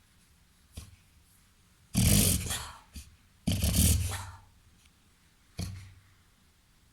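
A Labrador–golden retriever–Weimaraner cross dog reverse sneezing: forceful, noisy pulls of air through the nose in four bursts. There is a short one about a second in, two longer, louder ones in the middle, and a short one near the end.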